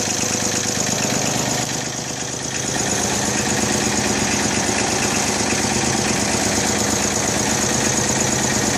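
Small 32 hp farm tractor engine running at a steady idle, briefly dipping about two seconds in and then settling back to a steady run.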